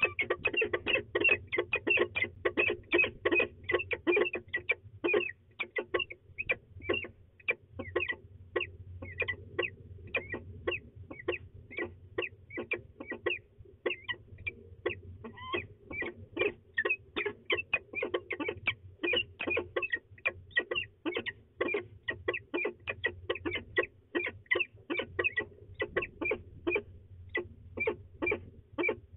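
Peregrine falcons giving a rapid, unbroken series of short chupping calls, about three to four a second, as a pair bows together over the nest scrape, typical of their courtship display.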